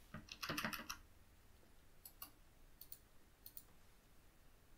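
Faint computer mouse clicks: a short flurry of noise about half a second in, then a few single clicks spaced out after it.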